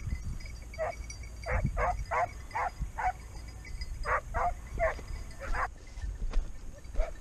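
Hunting dogs on a hare hunt baying in about a dozen short, unevenly spaced barks. This is the voice hounds give while working a hare's scent.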